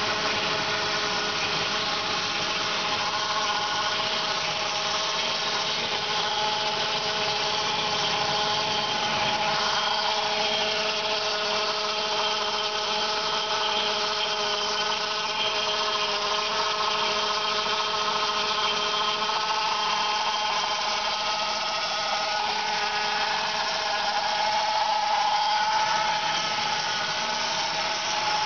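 Saab 9-5 B205E 2.0-litre turbocharged four-cylinder engine running steadily with a whining noise held on several steady tones, which the owner believes comes from the oil pump.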